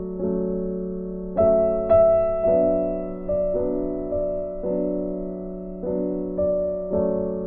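Background music: a slow keyboard melody of struck notes that ring and fade, a new note about every half second to a second.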